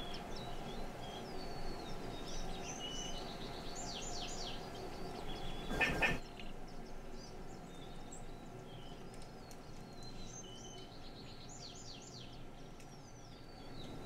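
Small songbirds singing in the background, repeating quick runs of high down-slurred notes over a steady outdoor hum. A brief noise burst about six seconds in.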